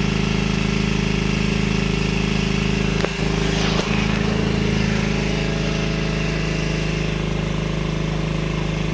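A steady mechanical hum, like a motor or engine running, with two brief knocks a little after three seconds and just before four seconds in.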